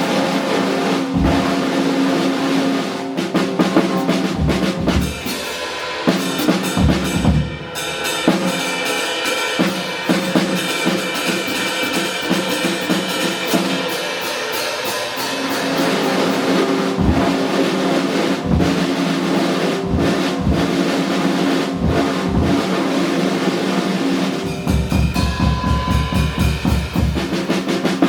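Live jazz band playing, with the drum kit to the fore: snare and bass-drum strokes over held pitched notes, and a quick rolling run of low drum strokes near the end.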